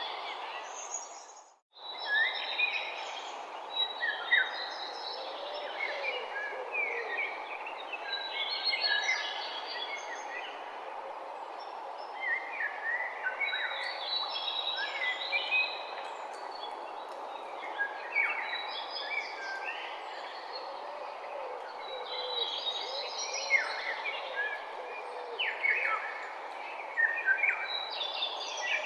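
Morning birdsong ambience: several songbirds chirping and singing over a steady background of environmental noise. The whole sound drops out briefly about a second and a half in, then resumes.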